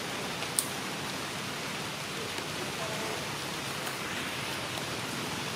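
Steady, even hiss of outdoor forest background noise, with a single sharp click about half a second in.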